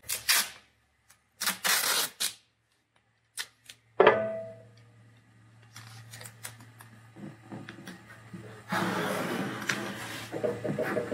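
Masking tape pulled off the roll in a few short tearing rips, then a sharp knock a few seconds in. Near the end, hands rub strips of tape flat against the sidecar body in a steady rustling scrub.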